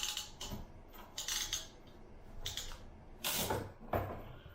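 PEX crimp tool being worked, giving about six short metallic clicks at uneven intervals as it squeezes a crimp ring onto the PEX shutoff valve fitting.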